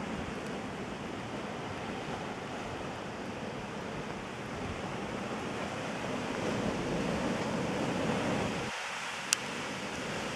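Sea surf washing against the rocks at the foot of a cliff, a steady rushing noise, with wind on the microphone. A single sharp click near the end.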